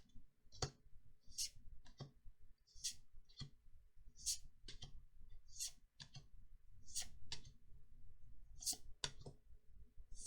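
Trading cards being flicked through one at a time, each card sliding off the next with a short papery swish or snap, about one or two a second at an uneven pace.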